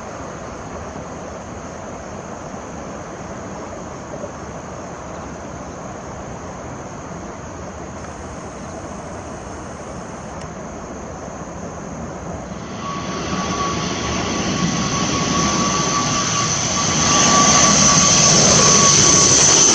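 Steady distant rumble of an Airbus A321 jet taking off and climbing away. About two-thirds of the way through, an ATR 72-600 turboprop on landing approach comes in with a steady high whine and grows loud as it passes low overhead.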